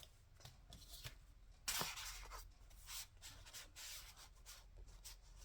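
Paper and card rustling and sliding as journal pages and ephemera are handled, with one louder swish a little under two seconds in and fainter brushing strokes after it.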